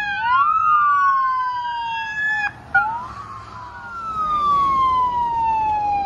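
Fire truck siren wailing, its pitch sliding slowly up and down, with a second siren tone crossing it at first. It cuts out briefly about halfway through and comes back with a sharp click.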